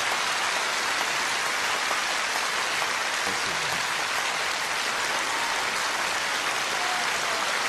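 Large audience applauding steadily, a dense even wash of clapping.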